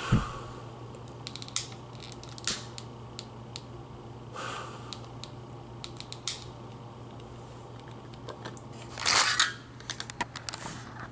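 Long-nozzle utility lighter's trigger clicked over and over, irregular sharp clicks with a few short hissing bursts, one near the start, one about halfway and a longer one about three-quarters through.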